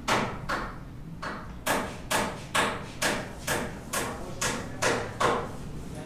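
Hammer blows at a steady pace of about two a second, a dozen sharp strikes with one short pause about a second in, each ringing briefly as it fades.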